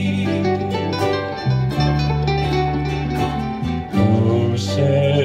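A small acoustic band of ukuleles and guitars playing an instrumental passage without singing: plucked strings over low bass notes that change every second or two.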